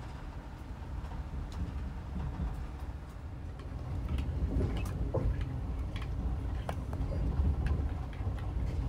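Passenger sleeping car of a moving train, heard from inside the compartment: a steady low running rumble. From about four seconds in it grows louder, with scattered sharp clicks and creaks from the wheels and carriage.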